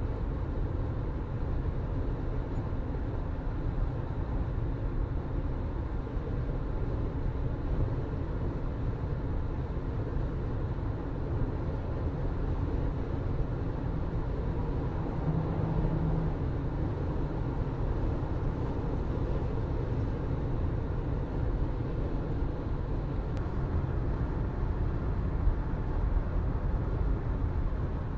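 A car driving at a steady pace: a constant low rumble of engine and road noise with no change in speed.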